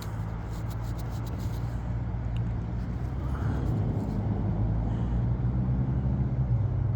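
Steady low rumble of a motor vehicle engine running, slowly growing a little louder.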